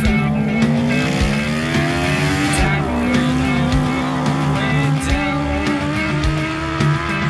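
Honda CBR600 inline-four motorcycle engine in an off-road buggy running at high revs, climbing in pitch from about a second in and dropping sharply a little before the middle, then holding high.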